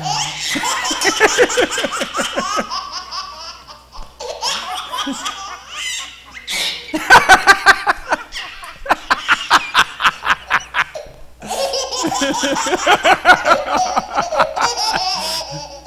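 A puppet character laughing hard in long, high-pitched fits, broken by short pauses, with a run of rapid ha-ha pulses, about five a second, in the middle.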